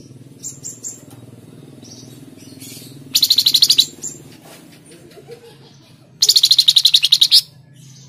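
Flamboyan (tledekan jati) songbird singing: three short high chirps, then two loud, fast rattling trills of about eleven notes a second, the second trill longer. A steady low hum runs underneath.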